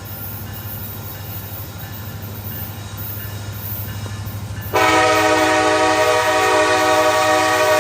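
Steady rumble of a passing train. About two-thirds of the way in, the locomotive's Nathan K5LA five-chime air horn starts suddenly and holds a loud, steady chord, a horn described as obnoxiously loud.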